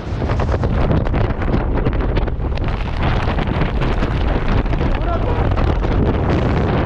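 Rushing wind buffeting a skydiver's camera microphone as the parachute deploys, with rapid flapping of the canopy fabric during the first couple of seconds as it opens, then a steady wind rush under the open canopy.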